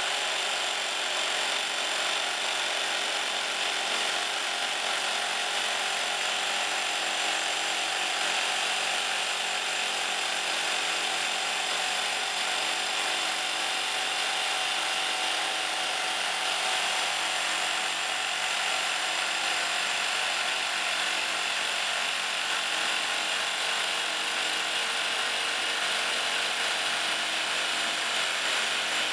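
Two hydraulic rock drills on a twin-boom drill rig drilling 1.8 m blast holes into a rock face, making a steady, dense drilling noise.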